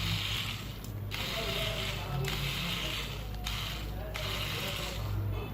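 A phone being taken apart with small hand tools: repeated scraping and ratchet-like clicking, in stretches of about a second each, over a low steady hum.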